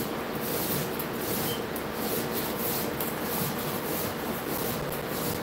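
Paint roller on an extension pole, loaded with wet screen paint, being rolled back and forth over a flat screen panel in repeated strokes.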